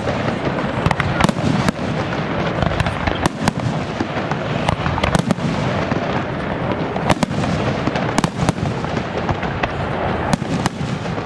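Fireworks display: a rapid barrage of aerial shells bursting, sharp bangs coming several times a second over a constant low rumble.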